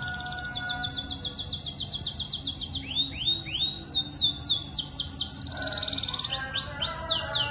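Caged songbird singing: a rapid, high trill of repeated notes, switching about three seconds in to a string of sweeping, curved whistles that run on to the end.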